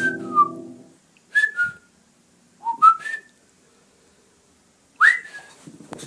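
A dog chewing a squeaky toy: short, high squeaks in four quick groups, some coming in pairs as the toy is squeezed and released.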